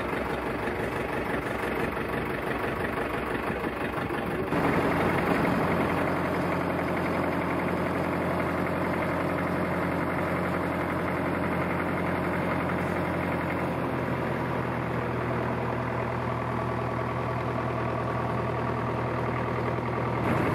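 Old tractor engine running steadily. About four and a half seconds in the sound changes, getting louder with a steady low hum.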